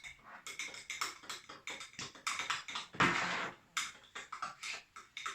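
A spoon stirring yeast into water in a cup, clicking and tapping against the sides in a quick, irregular rhythm, with a louder scrape about three seconds in.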